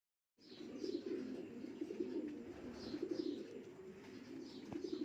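Racing pigeons cooing in a loft, a low wavering murmur of calls, with short high falling chirps over it about once a second.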